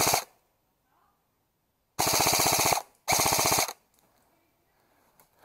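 Airsoft electric rifle (AEG) firing on full auto: a short burst at the start, then two more rapid bursts about two and three seconds in.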